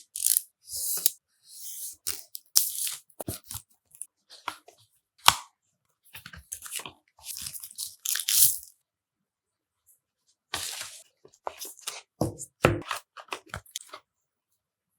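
Phone packaging being unwrapped: plastic wrap tearing and crinkling in irregular bursts, with sharp clicks and knocks from handling the cardboard box.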